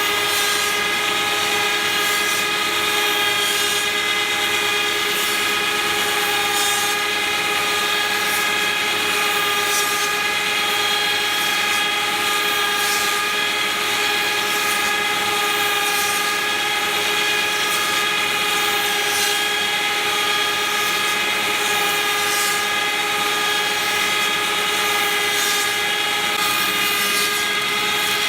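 Cosma SKS 7 copy milling and sanding machine running steadily, with a constant high-pitched whine that does not change in pitch or level.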